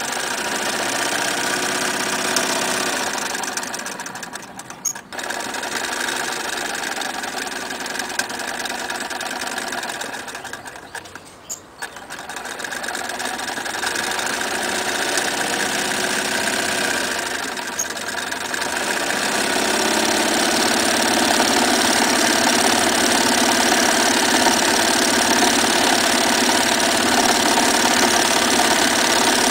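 Electric Singer 99K sewing machine stitching through fabric, its motor and needle mechanism running steadily. It slows almost to a stop twice, about five and about twelve seconds in, then runs louder and faster from about twenty seconds in.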